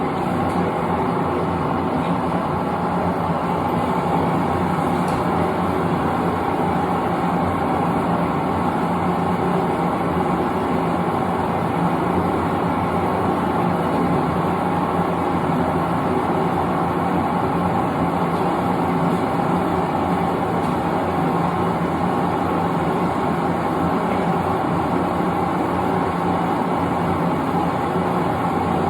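Propane forge burner running with a steady, even roar.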